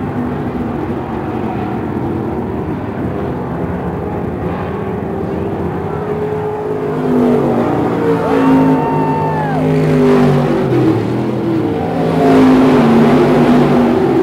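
Dirt-track stock cars racing, several engines running and revving together as they lap the oval, rising and falling in pitch. The sound gets louder as cars come by about seven seconds in and again near the end.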